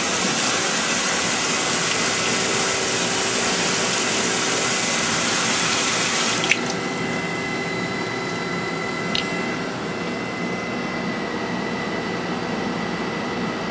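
Coolant spraying from the nozzle of a Wasino Meister V3 CNC surface grinder, a steady watery hiss. About six and a half seconds in it cuts off with a click, leaving the grinder's quieter running hum with a faint steady whine.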